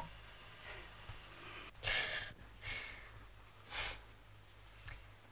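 Three short, sharp hissing breaths drawn in, the first the loudest, as antiseptic is dabbed on a cut hand and stings. A faint steady low hum lies underneath.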